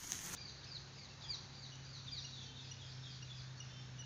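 Faint bird chirping over and over, short high falling calls a few times a second, over a low steady hum.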